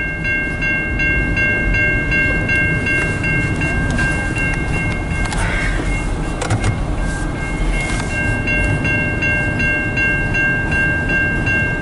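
CN freight train's cars rolling past over a grade crossing, a steady low rumble. Over it the crossing's warning bell rings in even strokes, about three a second.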